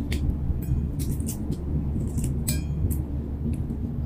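Scattered light clicks and clinks from a spoon against a stainless steel bowl and from a balut eggshell being peeled, over a steady low hum.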